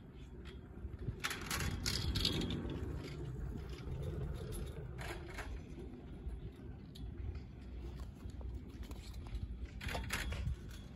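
Ride on an SLI fixed-grip double chairlift: a steady low rumble, with a clattering rattle about a second in as the chair passes over a tower's sheaves. Shorter rattles follow around five seconds and again near the end as the chair nears the top return bullwheel.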